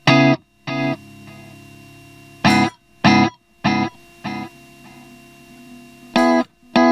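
Guitar chords played through a Keeley Halo Core delay pedal. Each struck chord comes back as a few evenly spaced echoes, a little over half a second apart, each quieter than the last. A new chord is struck about two and a half seconds in and again near the end.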